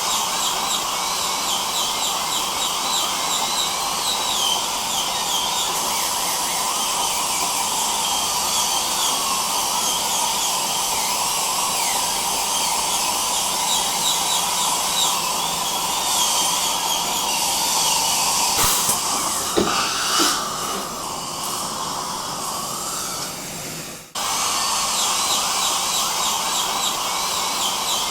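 Dental drill whining with a pitch that wavers up and down, over the steady hiss of dental suction. A few sharp clicks come about 19 to 20 seconds in. The sound then fades, cuts out for an instant about 24 seconds in, and starts again at once.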